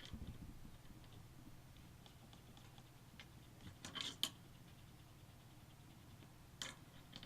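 Faint clicks and taps of small screws and tools being handled while screws are driven into a small PC case, a cluster about four seconds in and another near the end, over a low steady hum.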